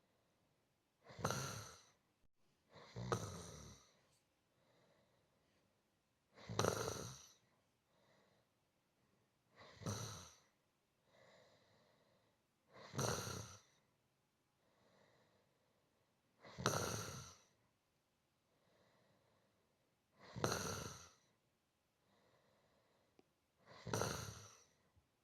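A person snoring softly and rhythmically: eight snores, each about a second long, come every three to four seconds, with faint breaths between them.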